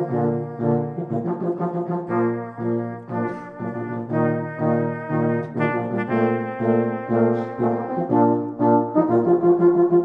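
A small brass band group, cornet with lower brass including a euphonium, playing a simple march tune together at a steady marching tempo, about two notes a second, growing louder near the end.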